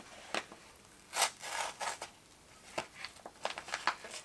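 A paper coffee bag being cut open across its top with a small blade and handled. There are a few short scrapes and crinkles, a longer rustling cut a little over a second in, and light ticks near the end.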